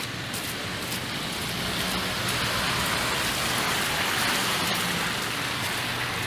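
Tyres of a vehicle hissing through slush and water on a wet street as it passes: the hiss swells for a few seconds, then fades.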